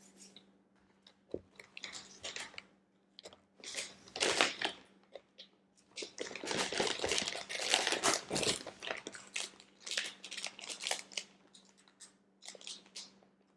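Close-miked eating sounds: chewing and biting of a soft snack, mixed with crinkling of a plastic snack wrapper, heaviest about halfway through.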